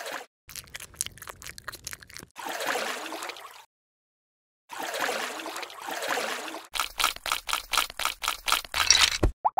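Added water sound effects: two washes of splashing, pouring water with a short silent gap between them. Near the end comes a run of quick sharp clicks, about five a second.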